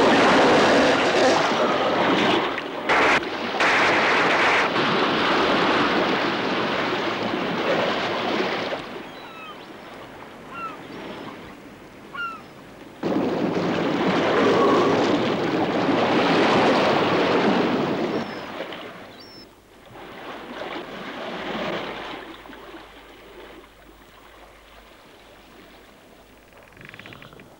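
Sea water splashing and churning in two long loud surges, the second starting abruptly about halfway through, then dying down to a low wash near the end. A few faint short squeaks sound in the quieter stretch between the surges.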